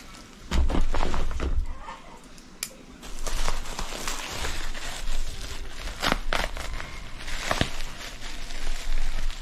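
A parcel being opened by hand: packaging crinkling and rustling, with scattered clicks and knocks. A low bump and rumble about half a second in is the loudest part.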